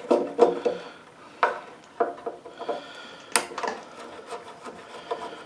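Screws being backed out of a lawnmower carburetor where it mounts to the fuel tank: tool scraping and rubbing with scattered sharp clicks, the loudest about three and a half seconds in.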